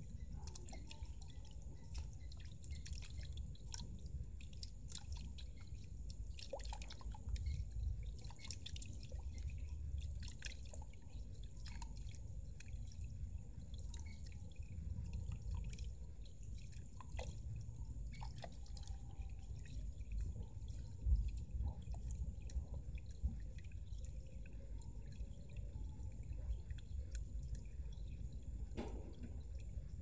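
Water from a small solar-powered fountain pump splashing and dripping into a shallow pool: a continuous patter of irregular small splashes over a low steady rumble.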